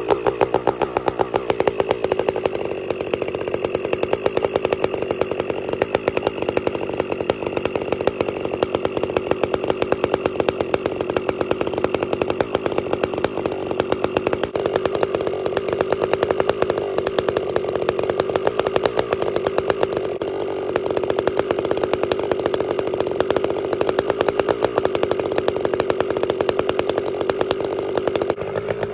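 Two-stroke chainsaw held at full throttle in a long cut, running at a steady high pitch with rapid firing pulses, its chain freshly ground to a square-ground profile. The engine eases off near the end.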